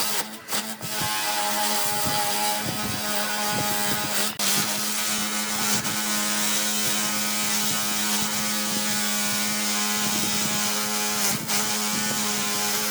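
Electric power tool motor running steadily with a hissing whine, dropping out briefly three times.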